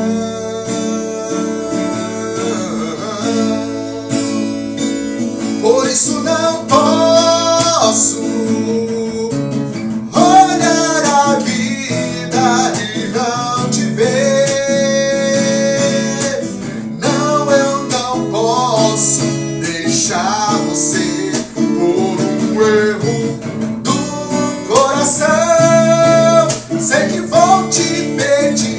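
A song played on acoustic guitar, with a voice singing a held, bending melody over the strummed chords.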